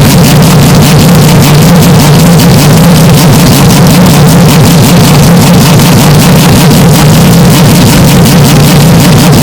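Race car engine noise recorded with severe clipping: a steady, heavily distorted low drone at constant full loudness, with no rise or fall in pitch.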